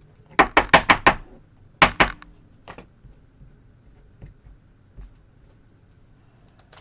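Computer keyboard keystrokes: a quick run of about five taps, then two or three more about a second later, and a couple of faint ones after that.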